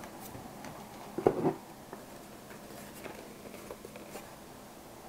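Hands handling a small metal-cased video device on a desk: one louder clunk about a second in, then faint scattered ticks and clicks.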